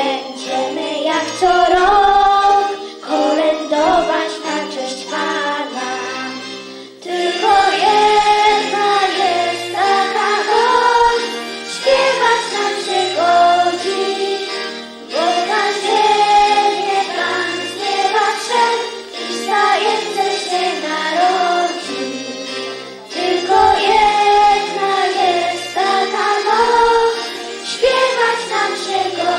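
Two girls singing a Polish Christmas song into microphones over instrumental accompaniment. The music fills out and gets louder about seven seconds in.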